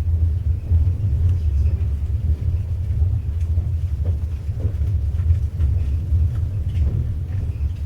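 Passenger train carriage rumbling steadily along the track, heard from inside, with faint light clicks and rattles scattered through.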